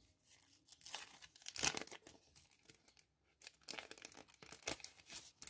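Clear plastic sticker packet crinkling and crackling as it is handled, in two spells with a short pause about three seconds in, loudest about a second and a half in.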